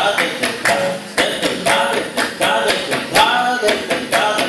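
Several tabla played together in a fast rhythm, with sharp strokes coming about three a second. A man's voice sings along over the drumming.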